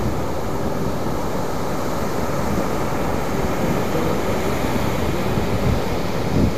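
Steady wind rumbling on the camera microphone, mixed with the wash of breaking surf.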